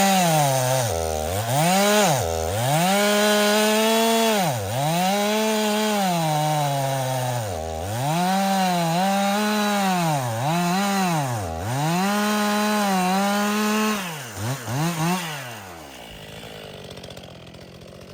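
Stihl MS261 C-M two-stroke chainsaw cutting firewood: the engine runs at high revs and repeatedly drops in pitch as the throttle is eased between cuts, with a few quick throttle blips near the end before the engine sound drops away.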